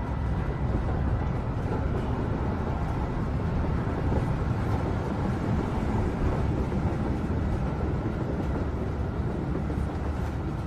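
Steady rumble of a subway train in motion, heard from inside the carriage.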